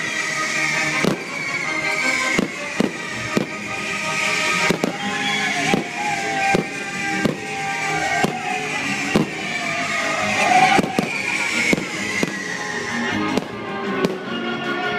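Aerial fireworks shells bursting, a sharp bang about every second at an irregular pace, over loud accompanying music.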